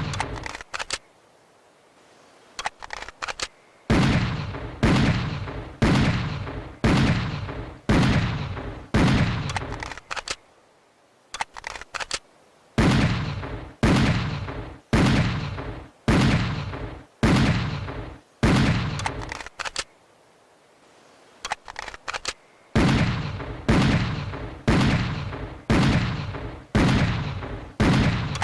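Schofield .45 revolver firing single shots about a second apart, each shot followed by a decaying echo. The shots come in three strings of about six, each string separated by a short pause filled with small metallic clicks.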